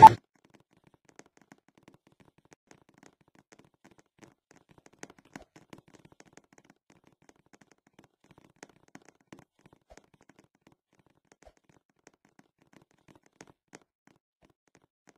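Near silence, with scattered faint clicks and taps. The end of a two-tone chime cuts off right at the start.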